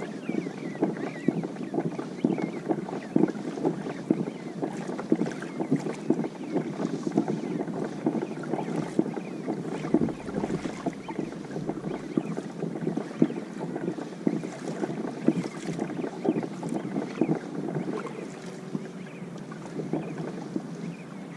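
Water sloshing and splashing against the hull of a kayak on the open sea, in a busy irregular patter, with wind buffeting the microphone.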